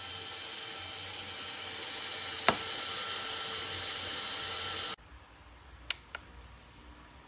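JISULIFE bladeless stroller fan running steadily: a hiss of moving air over a motor whine of several fixed high tones, with one sharp click about a third of the way in. The sound cuts off abruptly about two-thirds of the way in, leaving quiet room tone with a couple of faint clicks.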